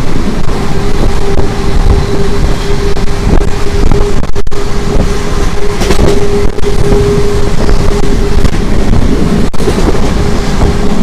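Electric express train running at speed, heard from an open doorway: a steady rush of wind and rumble with a steady hum, the wind buffeting the microphone.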